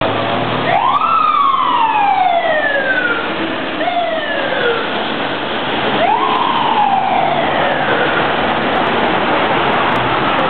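Fire engine siren wound up three times, each a quick rise in pitch followed by a long, slow falling coast-down, the pattern of a mechanical siren. Steady city traffic noise runs underneath.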